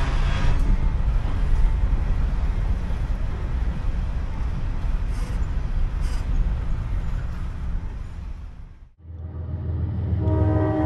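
Freight train running, a steady low rumble. About nine seconds in it cuts off sharply, and a steady chord of several held tones begins.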